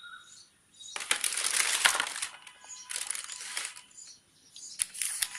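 Packaging wrap crinkling and rustling as cookware is handled, in three bursts: about a second in, around three seconds in, and near the end.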